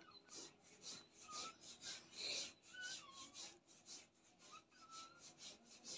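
Near silence: faint room tone with scattered faint short hissy noises and a few faint brief chirps.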